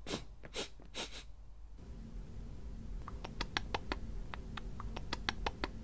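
Hamster sounds: three short, breathy sniffs in the first second and a half, then a run of quick, irregular dry clicks of nibbling and chewing on food.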